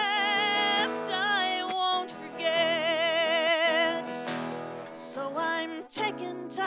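Country-style ballad: a singer holds long notes with a wavering vibrato over strummed acoustic guitar.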